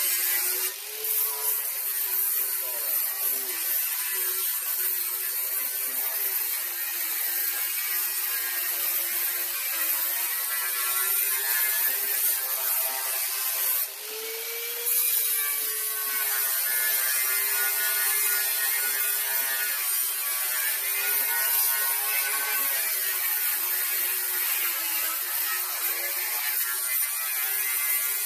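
Angle grinder with a flap disc grinding rust off the sheet-steel edge of an old VW bus apron panel: a steady, high motor whine with the hiss of the disc on metal. The load eases briefly twice, about a second in and about halfway through, then the grinding resumes.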